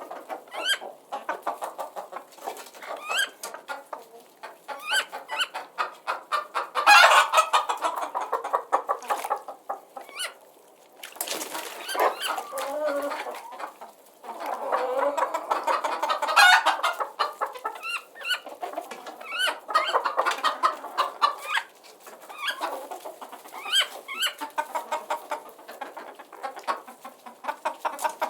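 A flock of chickens clucking and squawking, calls overlapping in bursts throughout.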